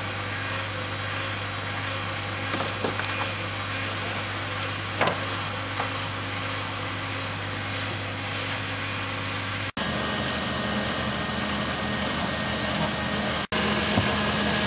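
Steady drone of a fire engine running close by, with the hiss of hose spray and steam from a burning car being put out, and a few sharp cracks in the first six seconds.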